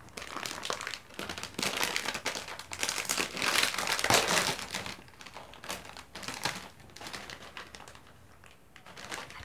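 Plastic snack bag crinkling and rustling as it is pulled open by hand. The crinkling is loudest in the first half and thins to faint rustles near the end.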